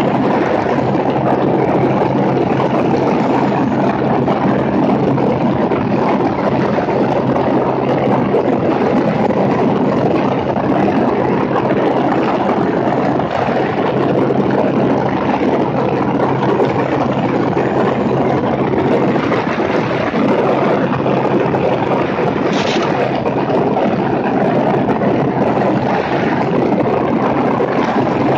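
Cessna 210's six-cylinder piston engine and propeller droning steadily in flight, under heavy wind rush over the wingtip-mounted microphone.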